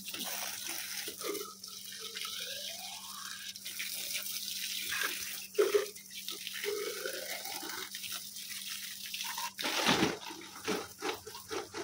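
Steady stream of water from a garden hose pouring and splashing onto the leaves and soil of potted vegetable plants, with a few louder splashes.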